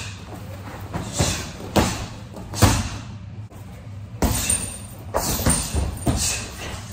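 Punches, strikes and a kick landing on a man-shaped training dummy and a hanging heavy bag: an irregular quick series of about seven thuds and slaps.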